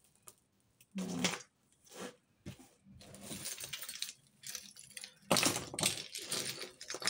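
Costume jewellery (beaded necklaces, metal chains and bangles) clinking and rattling as hands sort through a pile of it, in a few short bouts with the loudest jangling about five seconds in.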